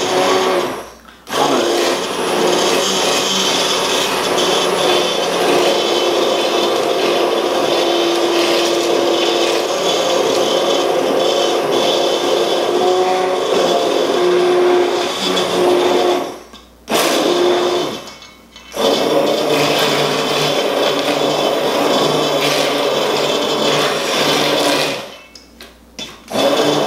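Immersion blender running in a stainless steel bowl, puréeing chopped vegetables, its motor pitch shifting as it is worked up and down through the mix. It cuts off briefly about a second in, twice close together past the middle, and once more near the end.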